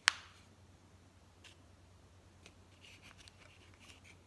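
Hands firming potting soil around a tomato seedling in a small plastic pot: faint scattered rustles and ticks of soil and plastic, after a single sharp click right at the start.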